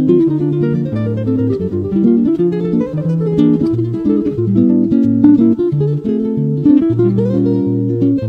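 Guitar playing a horă lăutărească, a Romanian lăutar dance tune: quick plucked melody notes over held bass notes.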